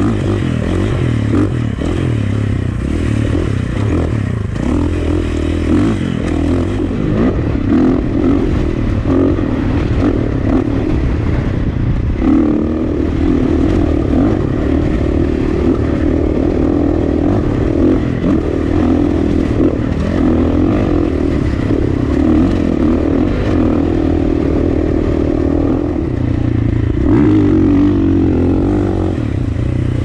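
KTM 450 XC dirt bike's single-cylinder four-stroke engine running under way on a dirt trail, its note shifting several times with throttle and gear changes.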